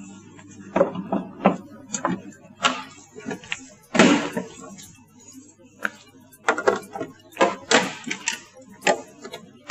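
Irregular knocks and clacks of plastic parts being handled and fitted onto a water dispenser's body during reassembly, the loudest about four seconds in, over a steady low hum.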